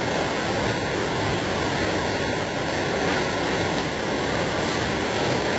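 Torrential rain and floodwater rushing into a large store: a loud, steady rushing noise.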